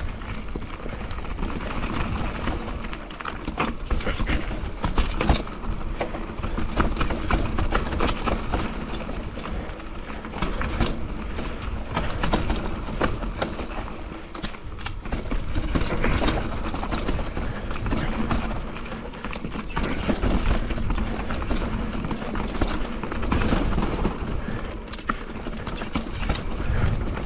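Mountain bike descending a steep, rough trail over roots and rocks: tyres rolling and knocking, with constant rattling and clattering from the bike, over a steady low rumble.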